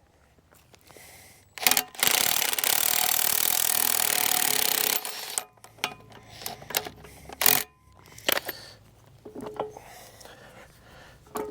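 A power tool runs for about three seconds, driving the screw bolt of a quick coupler on a mini excavator to tighten its jaw onto the bucket. It stops suddenly and is followed by scattered metal clicks and knocks.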